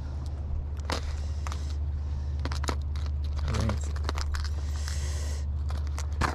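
Clicks, taps and scrapes from a hard plastic lure box being held open and handled, with lures knocking inside it, over a steady low rumble.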